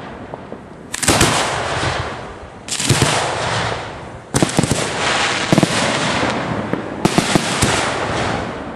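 Fireworks being fired at close range from the ground: about five sudden loud launches, each followed by a second or so of dense crackling and hiss that fades before the next.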